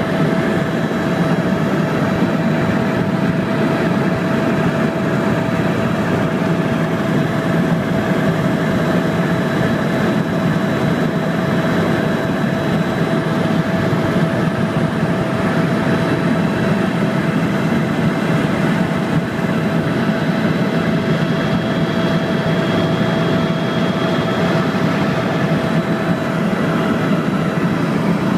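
Helicopter in flight: loud, steady engine and rotor noise with a constant whine, unchanging throughout.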